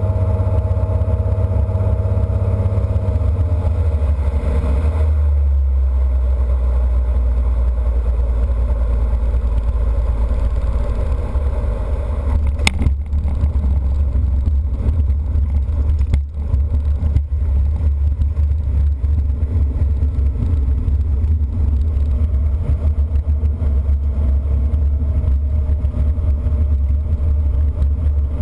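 Single-engine propeller airplane's piston engine and propeller droning steadily as heard inside the cockpit during landing, the engine note changing about five seconds in as power comes back. A sharp click a little before the halfway mark.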